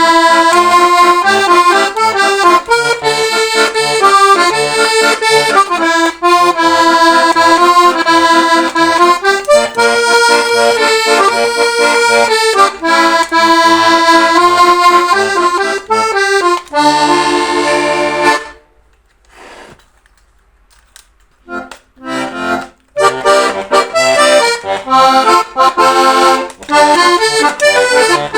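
Hohner Wiener diatonic button accordion in C/F playing a tune, melody over a steady alternating bass-and-chord pattern. A little past halfway it stops on a held chord and falls silent for about three seconds. It then sounds a few short chords and takes up the tune again.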